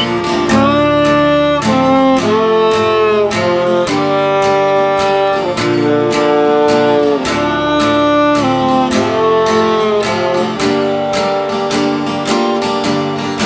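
Instrumental break in a song: a violin plays a melody of held, sliding notes over steadily strummed acoustic guitar.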